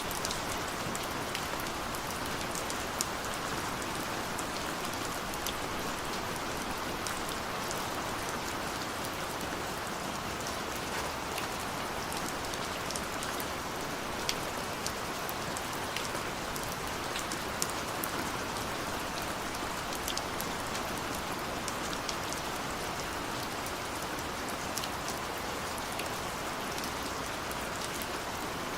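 Steady rain falling, with a constant hiss and scattered sharp drop ticks against glass, as of rain on a window.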